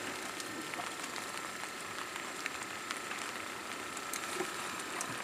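Steady rain falling on the river and the boat: an even hiss with a few faint drop ticks scattered through it.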